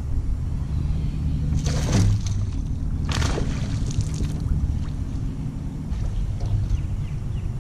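A hooked bass thrashing and splashing at the surface beside the boat as it is landed, in two bursts of splashing about a second apart, over a steady low rumble.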